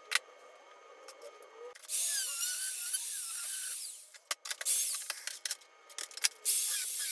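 A power tool working metal in two bursts of about two seconds, each with a wavering squeal, with sharp clicks and knocks of handling in between.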